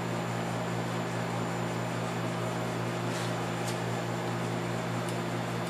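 Steady low electrical hum with a fan-like hiss, from a motor or fan running in the room. Two faint light clicks about three seconds in.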